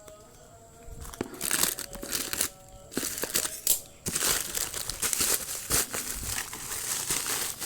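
Plastic parcel packaging crinkling and rustling as it is unwrapped, in irregular bursts that grow busier after the first second.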